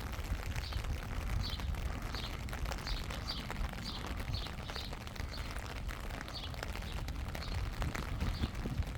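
A small bird chirping over and over, short high chirps about twice a second, over a steady low rumble.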